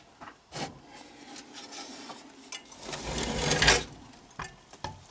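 Rubbing and scraping handling noise with a few light clicks; the loudest part is a scrape lasting about a second, about three seconds in.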